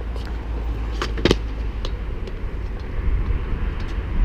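Skateboard wheels rolling on concrete with a steady low rumble, and two sharp clacks of the board about a second in.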